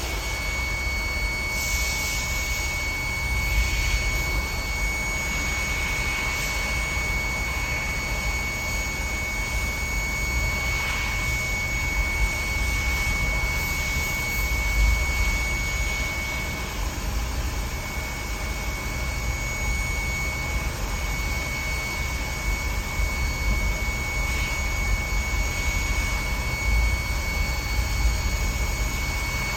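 2010 GMC engine running steadily, with a constant high-pitched whine over it.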